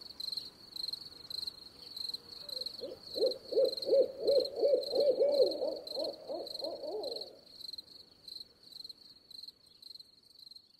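Crickets chirping in a steady rhythm, about three chirps a second. From about two and a half seconds in, a run of about a dozen quick, low calls, the loudest sound here, joins them for some five seconds and falls away at the end.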